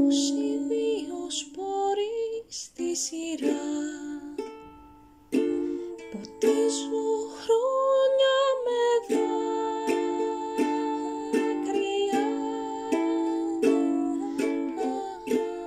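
Ukulele playing strummed and plucked chords in the song's closing bars, dying away near the end.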